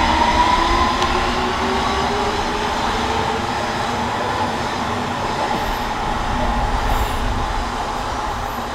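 London Underground S7 Stock District line train pulling away, its traction motors giving a rising whine over the first couple of seconds. The rumble of the wheels on the rails then fades slowly as the train draws away.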